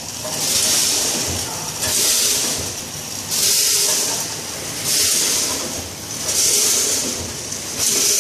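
Vertical measuring-cup snack packing machine running its bagging cycle: a loud hiss of compressed air about every one and a half seconds, about six times here, over steady machine running noise. Each hiss comes from the pneumatic cylinders venting as the sealing jaws work, one per bag.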